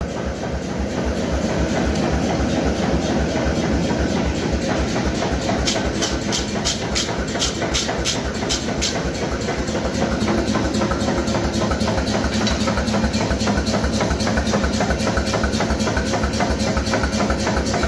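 Steady, evenly pulsing drone of heavy forge-shop machinery running throughout. A few seconds in, a wire brush scrubs a red-hot steel bar on the anvil in about eight quick strokes.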